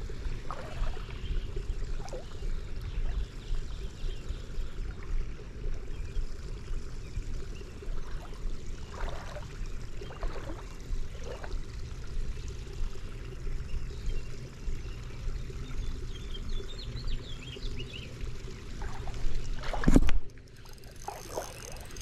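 Wind buffeting the microphone as a steady, fluttering low rumble, over the trickle of a creek's running water. One loud thump comes near the end.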